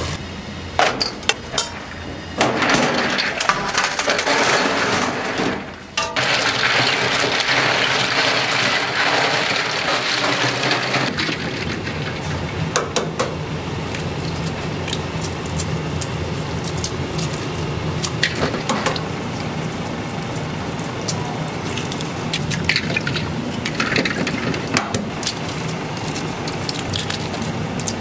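Kitchen water noise, running and splashing, with a dense hiss through the first part. From about halfway on comes a steady stream of small crackles: boiled eggshells being cracked and peeled in a steel bowl of water under a running tap.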